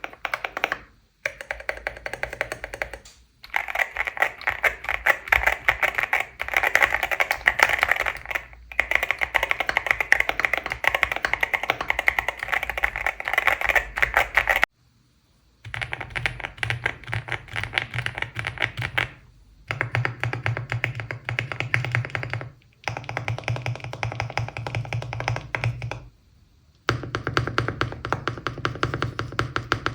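Mechanical keyboard being typed on fast, a dense run of key clicks and clacks, in several separate takes that each cut off abruptly, with music playing underneath.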